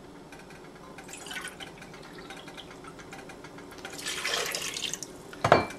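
Water poured from a measuring cup into a stainless steel pot of sugar, with a short splashing pour about four seconds in. A brief knock comes near the end.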